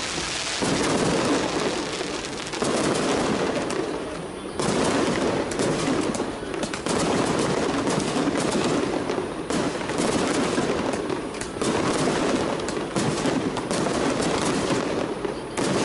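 Strings of firecrackers going off in a dense, rapid crackle, the bangs running together without a break. The texture shifts every few seconds.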